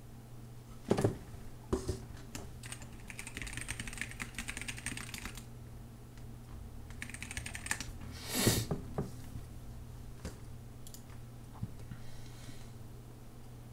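Computer keyboard typing in short runs of fast keystrokes, with two knocks on the desk about a second in and a louder thud a little past the middle. A low steady hum runs underneath.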